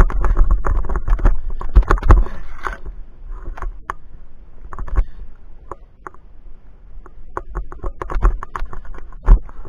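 Irregular clicks, knocks and scrapes of a climber on a via ferrata: hands and shoes on rock and metal clinking against the steel cable and chain, over a low rumble on the body-worn microphone. The knocks come thick and fast for the first three seconds, then sparser.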